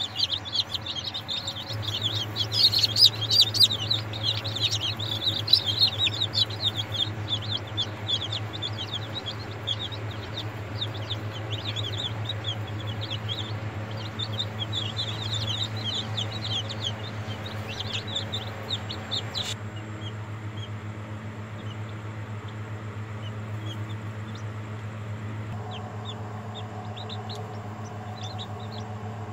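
Newly hatched chicks peeping: many rapid, high chirps, dense and loud for the first several seconds and thinning out later, over a steady low hum.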